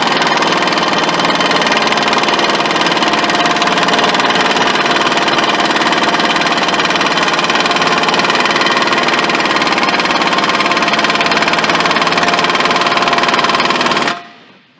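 Impact wrench hammering steadily on the forcing screw of a C-frame ball joint press, pushing against a stubborn ball joint. It cuts off abruptly just before the end.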